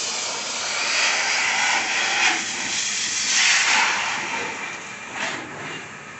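Pressure-washer water jet hissing as it sprays the side of a car. It surges louder twice as the spray sweeps across the body panels, then eases off near the end.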